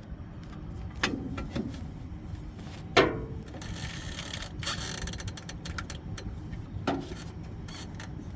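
Metal tools knocking and scraping on the grinder's seized Lovejoy shaft coupler as it is worked to break it loose: three sharp knocks, the loudest about three seconds in, with rapid clicking and scraping between them.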